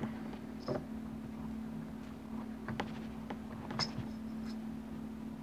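A few light clicks and taps of a Magpul polymer pistol grip being fitted onto an AR-15 lower receiver, lining the grip up with the safety detent spring, over a steady low hum.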